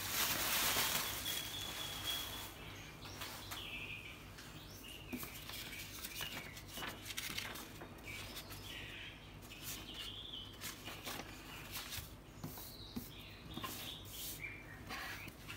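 Bubble-wrap plastic mailer crinkling as it is pulled off a boxed tablet during the first couple of seconds. Quieter paper rustling and light handling clicks follow, with faint bird chirps in the background.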